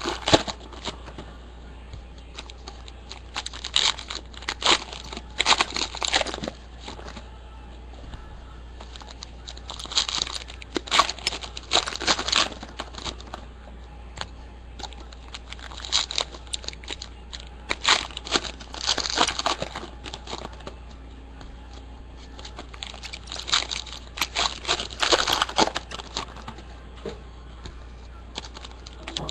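Foil trading-card pack wrappers of 2013 Press Pass NASCAR Racing being torn open and crumpled, in bursts of crinkling and crackling every few seconds, one pack after another.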